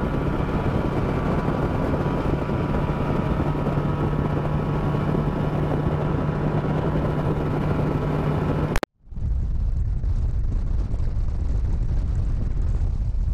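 Boat's two-stroke outboard running at speed, a steady hum under rushing wind on a clip-on wireless mic. About nine seconds in, a sharp click and a split-second dropout as the mic is blown off, then low, heavy wind buffeting on the camera's own microphone.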